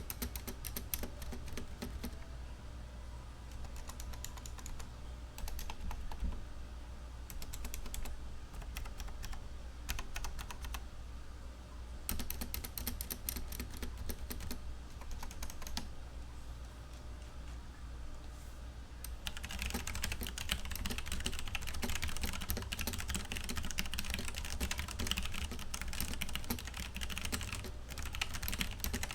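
Typing on a Logitech G Pro mechanical keyboard with Romer-G tactile switches: bursts of key clicks with short pauses between them, turning into faster, denser and louder typing about two-thirds of the way through.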